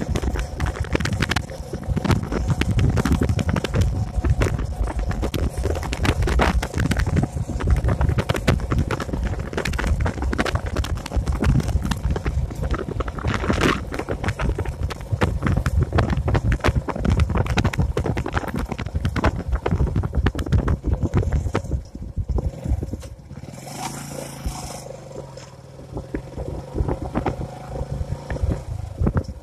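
Wind buffeting the microphone on a moving motorcycle, with the bike's engine running underneath. The buffeting eases about 22 seconds in, leaving the ride quieter.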